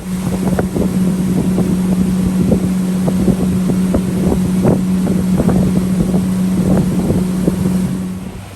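Pontoon boat's outboard motor running at higher speed as a steady hum that drops back to a lower pitch near the end, with irregular short knocks over it.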